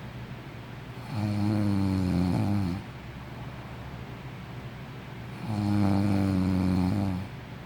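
A sleeping person snoring: two long snores, each lasting nearly two seconds, about four seconds apart, with a quieter stretch of breathing between them.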